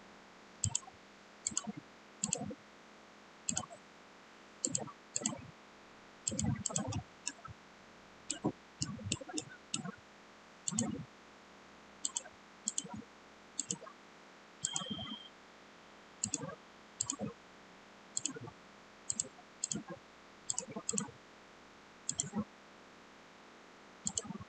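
Computer mouse clicking in irregular single and double clicks, about one or two a second, some with a duller tap underneath, over faint room hum.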